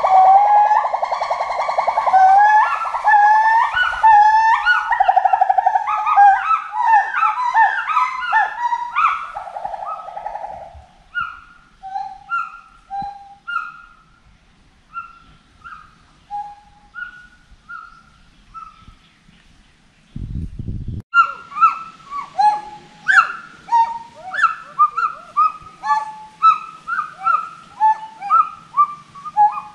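Gibbons singing: loud whooping calls that swoop up and down in pitch, several voices overlapping at first, then thinning to single, quieter hoots. A short low thump comes about twenty seconds in, and then a new series of rising-and-falling whoops starts and quickens.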